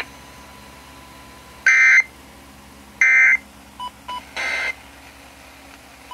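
Emergency Alert System end-of-message data bursts closing an Amber Alert: three short, loud screeching digital tone bursts spaced a bit over a second apart, with two brief faint beeps just before the third.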